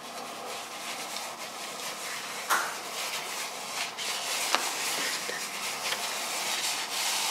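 Glitter-covered slime pressed and squished flat under both palms, giving a soft crackling hiss with scattered sharp little pops, the loudest about two and a half seconds in.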